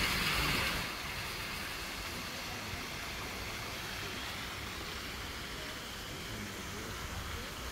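Water splashing down an artificial rock waterfall, loudest for the first second, then a steadier, fainter rush of falling water.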